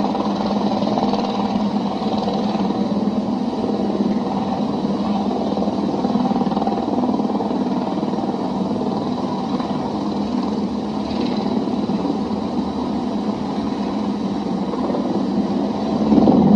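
Steady running of aircraft engines: a helicopter hovering low and a light propeller plane taxiing close by. Right at the end a louder crash begins as the helicopter comes down into the parked aircraft.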